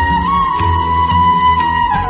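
Instrumental music: a single held melody note that bends slightly in pitch, over low bass notes that change about twice a second.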